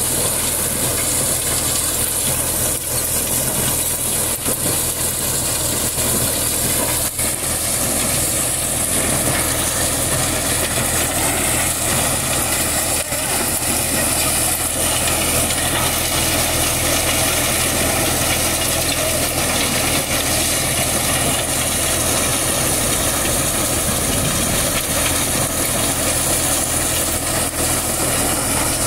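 A tractor engine runs steadily, driving a corn thresher through its power take-off, with a steady low hum under a dense rushing noise as ears of corn are fed into the threshing drum.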